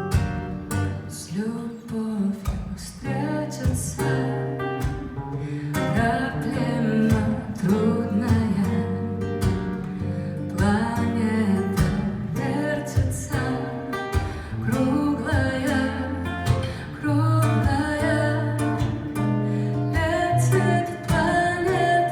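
Live jazz performance: acoustic guitar playing with a singing voice.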